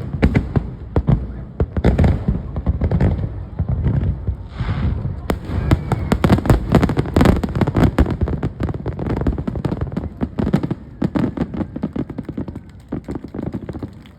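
Aerial fireworks finale: a rapid, dense barrage of shell bursts and crackling reports with deep booms, easing off near the end.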